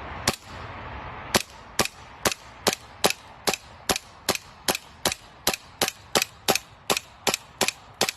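An air gun firing a rapid, even string of shots at a plastic soda bottle: one sharp snap, a short pause, then about two and a half snaps a second without a break. The pellets are not going through the bottle.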